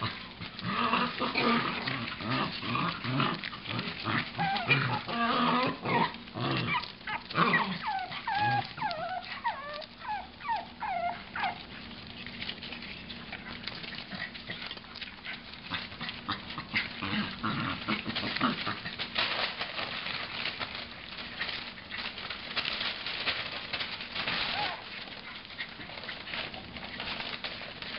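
Chug puppies, a pug–Chihuahua mix, yipping and whining in many short high calls, some falling in pitch, for about the first twelve seconds. After that comes a quieter stretch of clicking and rustling.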